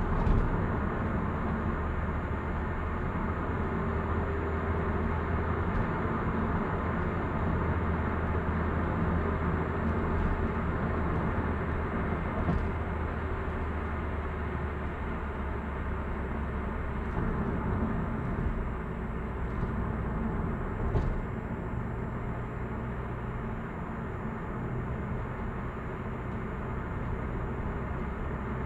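Steady in-cabin road noise of a Hyundai Avante AD (Elantra) at expressway speed: tyre and wind rush over a low, even engine hum, with a short knock right at the start.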